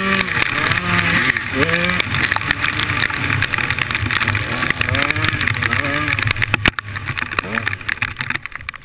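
Enduro dirt bike engine heard from the rider's helmet camera, revving up and down so the pitch keeps rising and falling. It eases off and gets quieter about seven seconds in.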